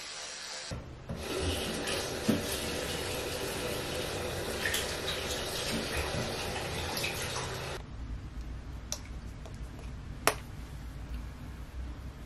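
An electric toothbrush hums for under a second. Then a bathroom tap runs into the sink for about seven seconds and shuts off abruptly, followed by a couple of sharp clicks.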